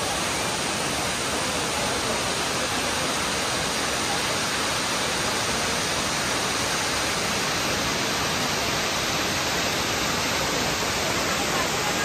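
Steady, even rush of Tirathgarh Falls, a large waterfall pouring down tiers of stepped rock.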